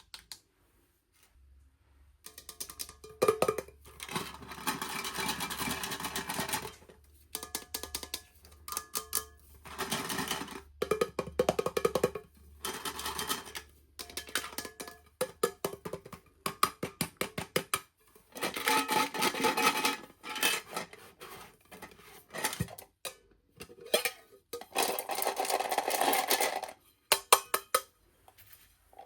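Handling of toy packaging: irregular bursts of crinkling and sharp clicks, broken by short pauses.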